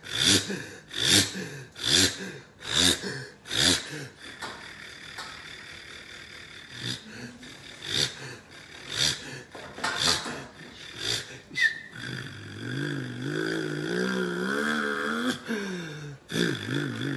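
A man imitating a bus engine with his voice. First come about five loud chugging bursts roughly a second apart, then quieter sputtering puffs. From about twelve seconds in, a droning hum wavers and climbs in pitch, like the engine pulling away.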